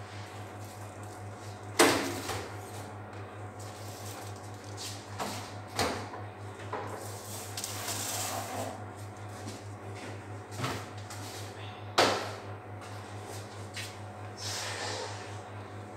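Cardboard milk and juice cartons set down and slid on a wooden table and bench, making sharp knocks twice and several lighter taps, with softer rustling between. A steady low hum runs underneath.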